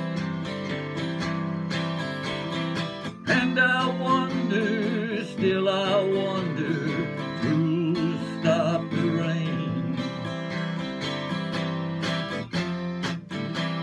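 Round-backed acoustic-electric guitar strummed in a steady rhythm, with a man's voice singing a wavering line over it in the middle.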